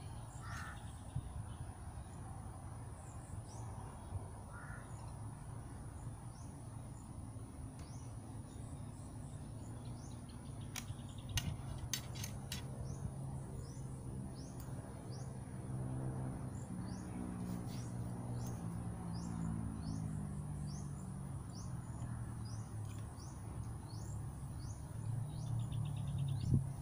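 Rural outdoor ambience: a steady high insect drone, with bird calls and a string of short high chirps repeating about once a second through the second half, over a low rumble.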